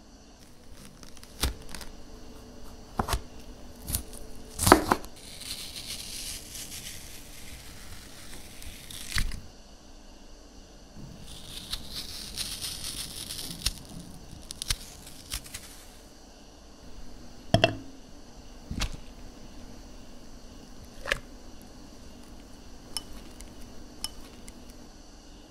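Close-up food-prep sounds: a stainless melon baller scraping into watermelon flesh in two stretches of a few seconds each, and a metal spoon clinking against a glass bowl several times in the second half. Several sharp knocks come near the start.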